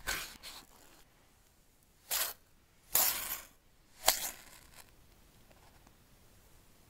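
Cardboard phone box and its paper seal strip being handled: four short scraping, rustling noises, the longest about three seconds in, and the sharpest about four seconds in as the paper tear strip is pulled off the box.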